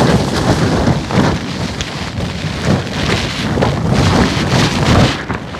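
Strong gusting wind battering a tunnel tent, the fabric flapping and snapping rapidly and loudly, with wind buffeting the microphone; the gusts ease slightly near the end.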